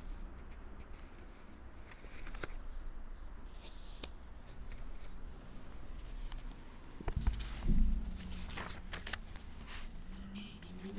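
Rustling and small handling noises in a small room, with light clicks and a louder low bump about seven seconds in.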